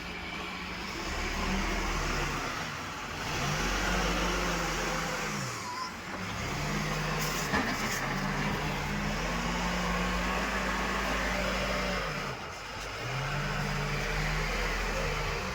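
Diesel engine of an Escorts Digmax backhoe loader at work, revving up under hydraulic load and dropping back about four times. A short sharp clank comes about seven and a half seconds in.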